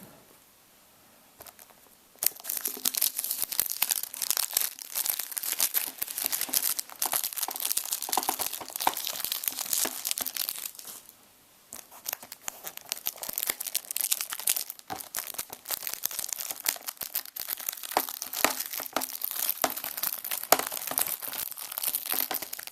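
Plastic shrink-wrap being torn open and peeled off a Blu-ray case, crinkling and crackling. It is quiet for about the first two seconds, and there is a brief pause past the middle.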